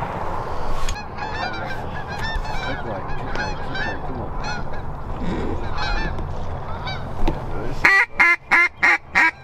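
Geese honking: many short calls overlapping throughout, then a run of five loud, separate honks close by near the end.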